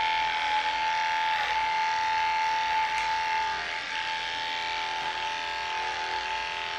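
Electric dog grooming clippers running with one steady tone as they shave a Jack Russell terrier's coat, the pitch dipping slightly now and then as the blade meets the hair.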